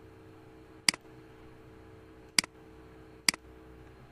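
Three sharp computer mouse clicks at uneven intervals, each with a softer tick just after, over a faint steady hum.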